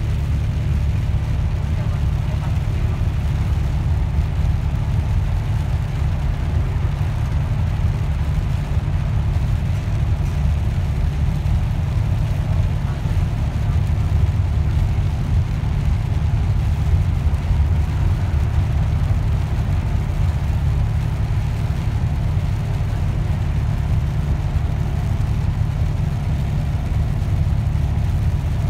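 Steady low drone of a Bustech CDI double-decker bus cruising on a wet road, engine and drivetrain rumble mixed with tyre and road noise, heard from inside the cabin.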